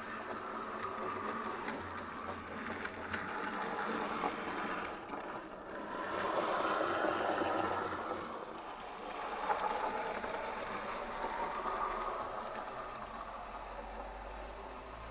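N gauge model tank locomotive running on the layout: the whirr of its small electric motor and the rattle of its wheels on the track, growing louder and fading twice.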